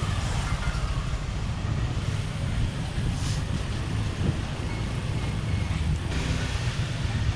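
Road and wind noise while riding a bicycle: a steady, fluctuating low rumble with a fainter hiss above it.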